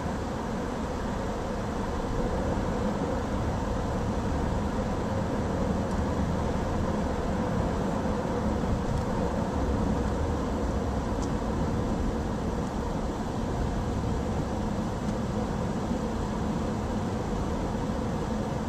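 Steady road noise and engine hum of a car cruising at a constant speed.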